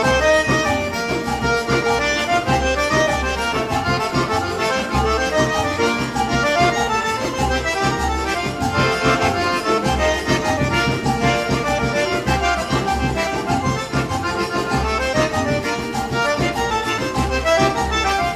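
Instrumental forró: an accordion plays a lively melody over a steady low drum beat, with no singing.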